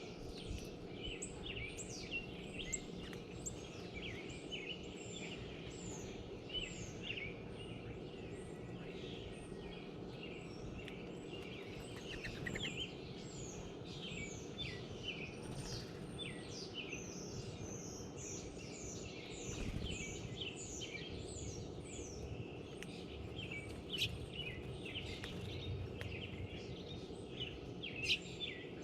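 Many small songbirds chirping and calling, with short quick notes and downslurred peeps overlapping throughout, over a steady low background hum.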